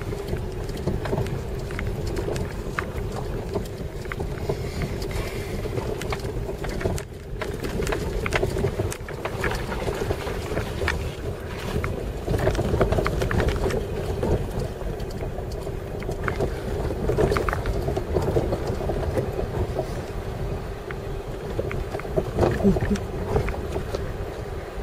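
Jeep driving slowly over a rough, bumpy dirt track: a steady engine drone and low road rumble, with frequent short knocks and rattles as the wheels hit bumps.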